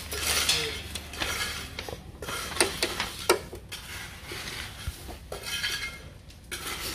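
Handling noise from unpacking and opening a heavy power amplifier: irregular scraping and rustling with light metallic clinks and knocks.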